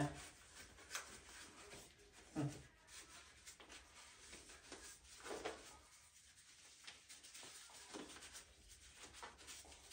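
Thin disposable plastic gloves rustling and rubbing faintly as they are pulled and worked onto the hands, broken by a few brief faint sounds.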